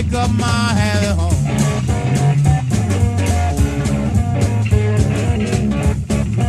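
Electric blues instrumental break: electric slide guitar playing gliding notes over a second guitar and a drum kit, with no singing.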